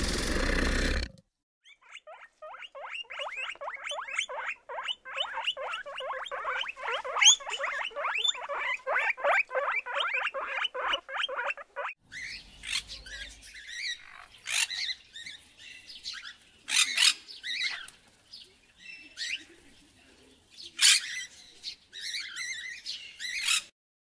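Animal calls in three parts. A loud, rough call cuts off about a second in. Then comes a long run of fast, chattering calls, about six a second. After that, scattered sharper high-pitched calls follow with short gaps between them.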